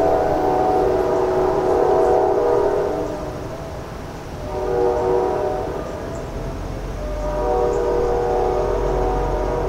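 New Jersey Transit locomotive's air horn sounding a chord of several tones: a long blast ending about three seconds in, a short blast near the middle, then another long blast from about seven seconds in, the closing long–short–long of a grade-crossing signal. A low rumble of the approaching train builds in the second half.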